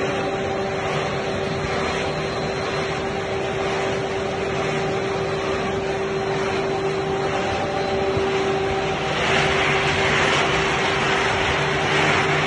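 Dry pet food production line running: a steady machinery hum with a constant whine over the hiss of dry kibble pouring from a rotating stainless steel drum. The hiss grows louder near the end.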